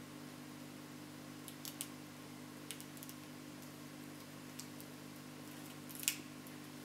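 A steady low electrical hum, with a few faint, sharp ticks scattered through it. The loudest tick comes about six seconds in.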